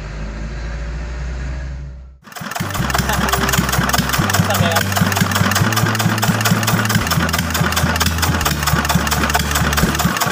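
Restored Dongfeng S195 single-cylinder diesel engine running with a fast, even clatter of knocks, beginning abruptly about two seconds in after a steady low drone.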